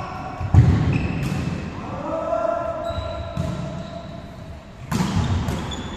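Volleyball rally: the ball is struck hard several times, a loud smack about half a second in and more hits after, each echoing in the hall, with players shouting calls between the hits.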